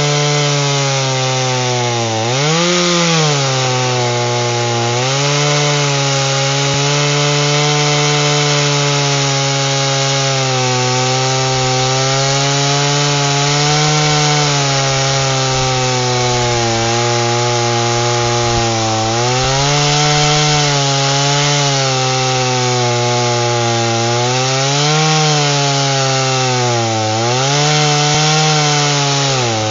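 Two-stroke chainsaw at full throttle, cutting through an aspen trunk. The engine note stays high and steady but sags briefly several times as the chain bites into the wood, then climbs back.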